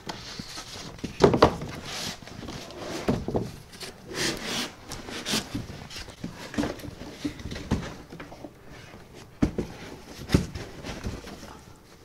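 Cardboard sheets and a foam packing block being shifted, stacked and lifted: irregular rustling and scraping with dull knocks, the loudest about a second in and again near the end.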